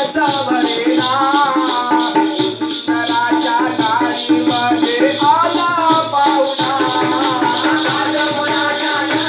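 Live Marathi folk dance music: a sung melody over a steady held drone note, with a continuous fast rattling and jingling percussion keeping the beat.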